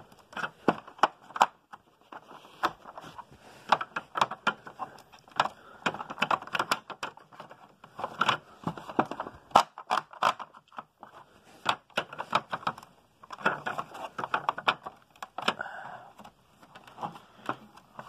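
Irregular plastic clicks, knocks and scraping from the wheel-height adjustment mechanism of a Hoover Wide Path bagless upright vacuum being worked by hand on its upturned base. The adjustment is sticking.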